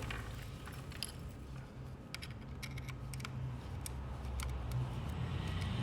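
Small metal parts clicking and clinking as they are handled, a cluster of sharp clicks about two to three seconds in, over a steady low hum.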